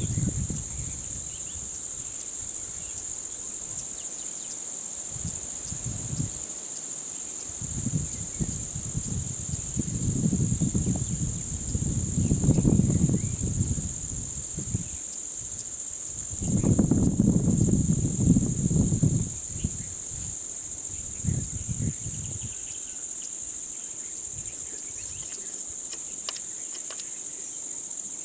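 Steady high-pitched insect chorus, with two spells of low rumbling noise, the first about a third of the way in and the second a little past the middle.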